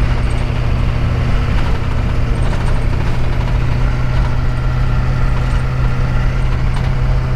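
A van's 6.2 L Detroit diesel V8 running steadily while driving, a constant low drone over road rumble.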